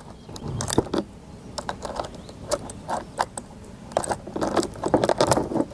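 Steel saw chain links clinking and rattling in quick irregular clusters as a loose chain is worked onto a chainsaw bar and around the drive sprocket.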